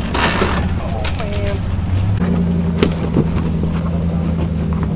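Off-road Jeep engine running steadily at low revs, its note firming up about two seconds in, with a short hiss at the very start, a few knocks and faint voices in the background.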